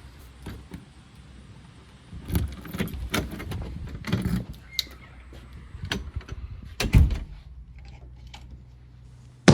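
Irregular knocks, clicks and rattles of objects being handled, with a low hum underneath. The loudest is a heavy thump about seven seconds in, and a sharp knock comes right at the end.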